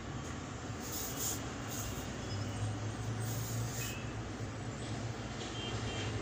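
Steady low hum with a faint hiss, and a few short scratches of a pencil drawing on paper, about a second in and again around three seconds in.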